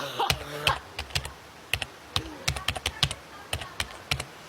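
Quick, irregular clicking and tapping, like typing on a keyboard, with a brief voice sound at the start and another short one about two seconds in.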